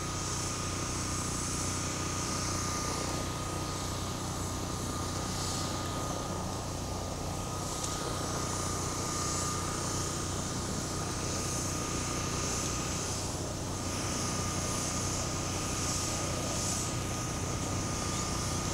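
A motor running steadily: a low hum with a constant high-pitched whine over it.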